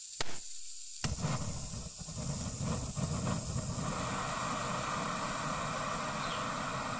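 Gas hissing from an open backpacking canister stove valve. A sharp click comes just after the start, and a second click about a second in lights the burner. The stove's flame then burns with a steady rushing hiss.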